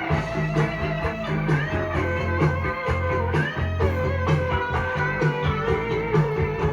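Guitar-led rock music with a steady, repeating bass line.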